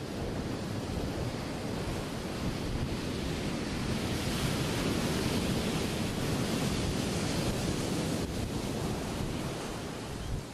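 Breaking ocean waves: a steady rush of surf and spray that swells about halfway through and eases near the end, with wind rumbling on the microphone.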